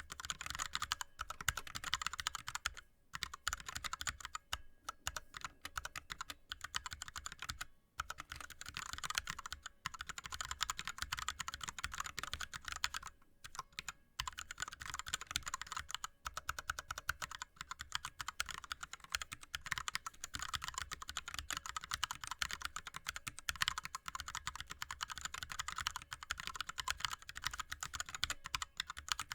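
Fast, continuous touch typing on an ErgoDox split keyboard with Cherry MX Red linear switches and blank DSA keycaps: a rapid stream of key clacks, broken by a few brief pauses.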